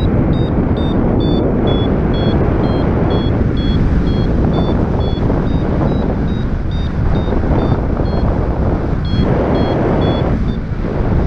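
Strong wind buffeting the microphone in a loud, steady rush, over a paragliding variometer giving short high climb beeps about two to three a second. The beep pitch shifts up and down, the beeps pause briefly twice and stop near the end.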